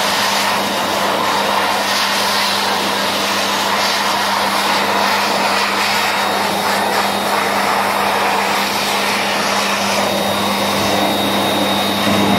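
Wall-mounted electric hand dryer running, a steady rush of blown air over a low motor hum.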